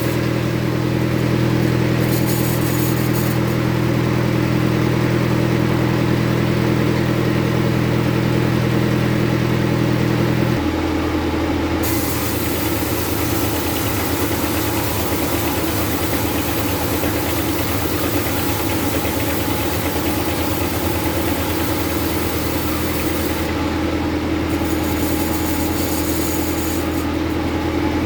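Bandsaw mill's drive engine running steadily, with a steady hum whose low tone shifts abruptly about ten seconds in.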